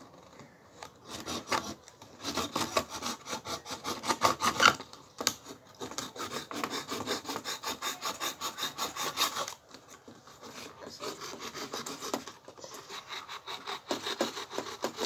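A knife blade sawing into the rim of a paper cup in rapid back-and-forth strokes. It is steady and loud from about a second in, then quieter and patchier after about nine and a half seconds.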